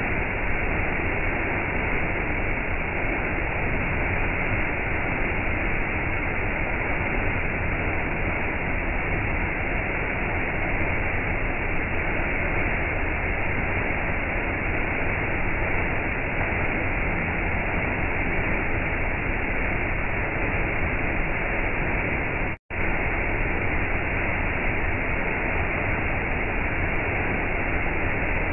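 Small waterfall splashing steadily onto rocks and into a shallow pool, a constant rush of falling water. It is broken once by a split-second dropout about three-quarters of the way through.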